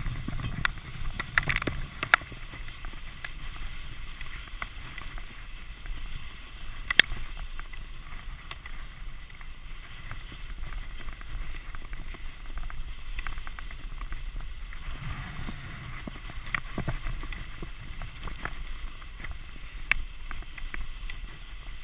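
Wooden dog sled running over a packed-snow trail: a steady hiss of the runners sliding on snow, with occasional sharp clicks and knocks from the sled, one louder about a third of the way in.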